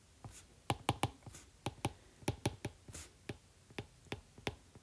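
Stylus tip tapping and sliding on a tablet screen during handwriting: irregular sharp clicks, about three a second, with a couple of brief scratchy swishes.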